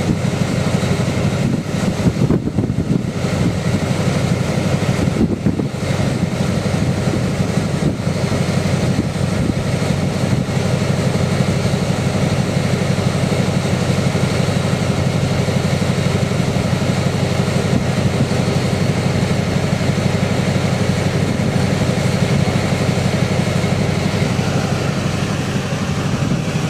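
Steady, unbroken rumble of a running vehicle, strongest in the low range.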